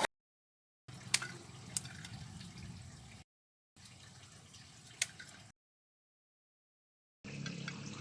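Water dripping: three single sharp drops over a faint low hum, in short clips broken by stretches of dead silence.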